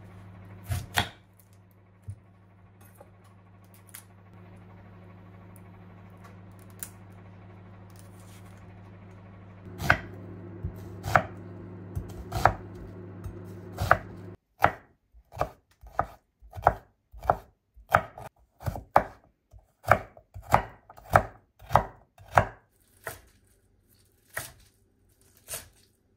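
Chef's knife cutting on a wooden cutting board. First come a few separate cuts through an onion with a steady low hum behind them. About fourteen seconds in, the hum stops and a run of quick chops through cabbage follows, about two a second, thinning out near the end.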